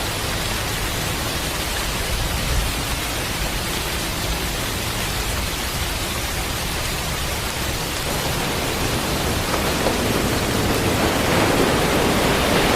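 Steady hiss of heavy hurricane rain and wind, growing somewhat louder over the last few seconds.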